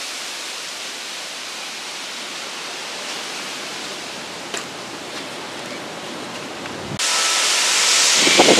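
Steady rushing of tropical-storm wind through the tree foliage. About seven seconds in it jumps suddenly louder and hissier.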